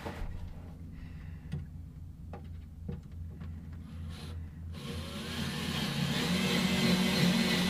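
A few light knocks and clicks of handling, then about five seconds in a power drill starts up and runs steadily with a slightly rising whine, driving a pocket-hole screw up through the frame into the bench top.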